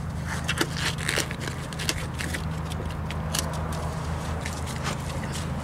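Undersized nitrile gloves being pulled and stretched onto a hand: a run of small crackles, snaps and rubbery scrapes over a steady low hum.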